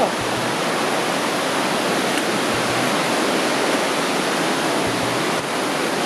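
A waterfall running steadily: an even, unbroken rush of falling water.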